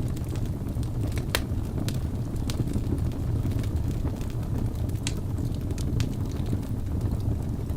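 Wood fire burning in a fireplace: a steady low rumble of flames with a scattering of sharp crackles and pops, the loudest about a second and a half in.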